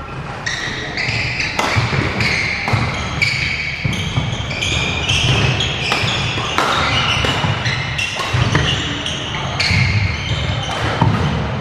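Echoing sports-hall noise: many short high squeaks, like court shoes on the floor, mixed with knocks and thuds and distant voices.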